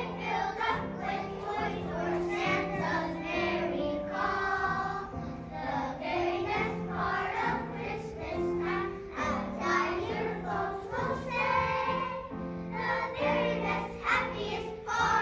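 A group of young children singing a song together as a choir, in a steady rhythm.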